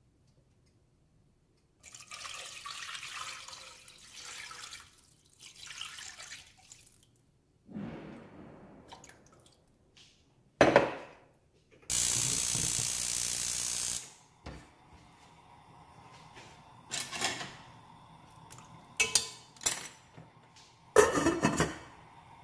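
Kitchen tap water running in uneven spurts and splashing in a sink, with a loud steady rush of water for about two seconds midway and several sharp knocks of kitchenware.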